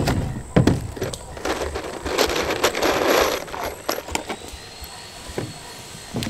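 Work boots knocking and scuffing on a rough, flaking metal mobile-home roof as a man steps and crouches down beside a 2x4 purlin, with a couple of sharp knocks at the start and a longer stretch of scraping a second or two in.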